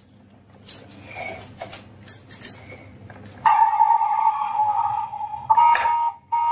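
Marbles clicking and clattering along a wooden run, then, about three and a half seconds in, a loud steady electronic buzzing tone from a battery toy vehicle's sound unit, cutting out briefly near the end before starting again.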